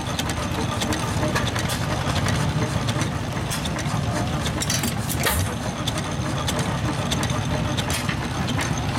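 A 4 hp Reeves stationary engine running and belt-driving a Reeves No. 000 variable speed drive: a steady low mechanical running sound with scattered clicks.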